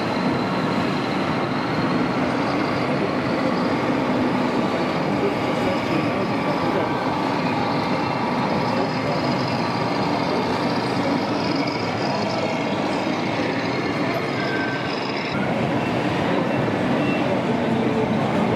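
Steady crowd chatter mixed with a continuous engine-like running sound from a 1:14-scale RC Scania truck driving slowly.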